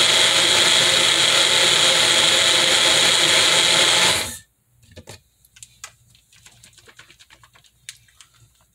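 Magic Bullet blender running steadily while blending frozen strawberries with yogurt and milk, then cutting off suddenly about four seconds in. Afterwards there are faint clicks and knocks as the blender cup is handled.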